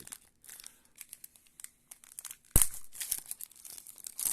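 Trading card pack wrapper being torn open and crinkled, with a sharp, loud rip about two and a half seconds in and another near the end.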